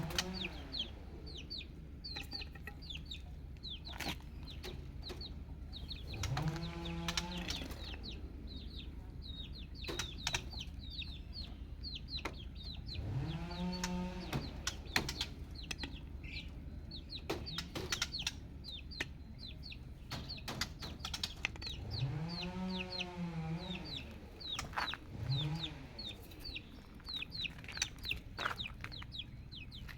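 Chicks peeping, many short, high, falling chirps in quick succession, with a few longer, lower calls that rise and fall, from a chicken.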